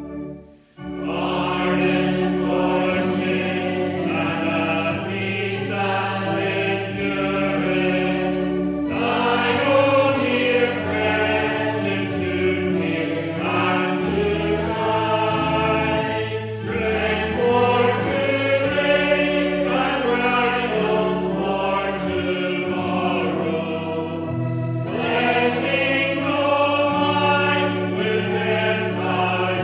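A congregation singing a hymn together over a sustained chordal accompaniment, with a brief break just after the start before the singing resumes.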